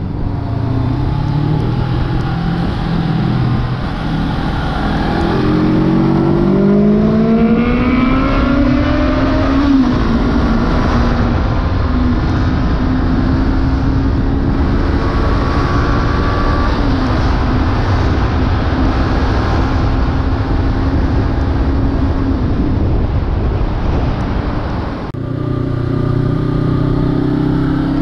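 Honda CB500F's 471 cc parallel-twin engine under hard acceleration: the note climbs through the revs, dips briefly at a gear change about ten seconds in, then holds steady at high revs at full speed on the straight. About three seconds before the end the throttle shuts and the engine note drops suddenly.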